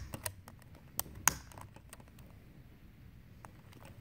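Sharp plastic clicks and taps from a snorkel mask's black plastic frame being tugged off its tabs by hand, a few clicks in the first second and a half, then only faint handling ticks.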